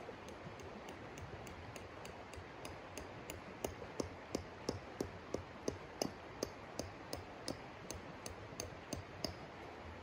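A regular series of sharp metallic taps, about three a second, each with a short ring, getting louder about three and a half seconds in, over the steady rush of a river.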